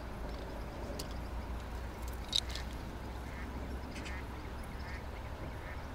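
Steady low outdoor rumble, like wind on the microphone, with a few short, sharp high sounds on top, the loudest about two seconds in.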